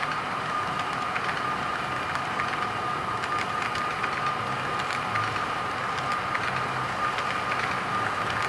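HO scale model freight cars (trailer-carrying flatcars) rolling past on the track: a steady rolling rumble with light irregular clicks from the wheels over the rails, and a steady high whine running through it.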